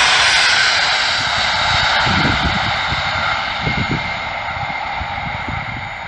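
Passenger train's coaches rolling past at speed and away down the line: a steady rushing of wheels on rail that fades slowly as the train recedes.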